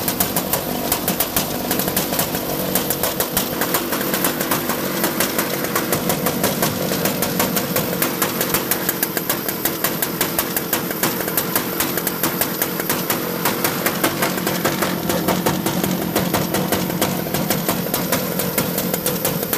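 Vortex Mini ROK 60cc two-stroke kart engine idling steadily just after its first start, with a rapid even firing patter: it starts and keeps running on a newly fitted Bendix and starter gear.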